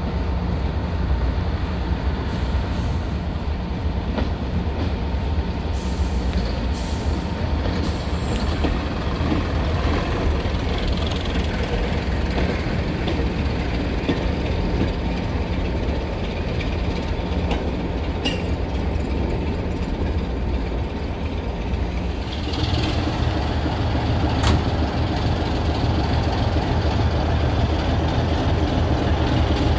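Class 121 diesel railcar with a trailer car running slowly past, its underfloor diesel engines rumbling with a steady thin whine over the top, and a few short hisses about six to eight seconds in. Past twenty seconds in the sound changes to a deeper, steadier diesel engine rumble.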